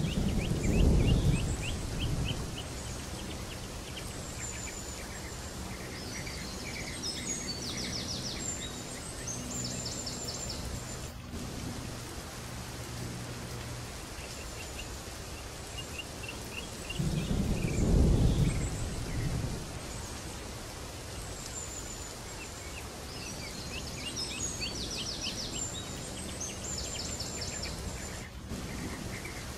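Background nature soundscape: birds chirping over a steady hiss, with a low rumble near the start and again about halfway through. The same stretch of sound repeats, so it is a looped ambience track.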